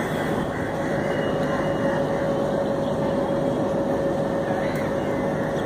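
Train running at speed, its steady rumble heard from inside a moving carriage, with a steady whine running through it.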